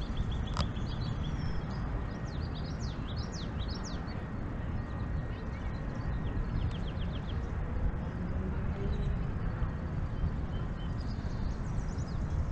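Small songbirds calling: a few quick sweeping chirps a couple of seconds in and a short rapid trill of about eight notes near the middle, over a steady low rumble.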